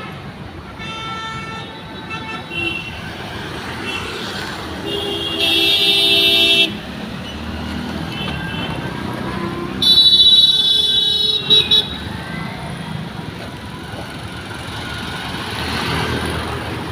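Road traffic running steadily with vehicle horns honking: a faint horn about a second in, then two loud, steady horn blasts of nearly two seconds each about five and ten seconds in, the second followed by a couple of short toots.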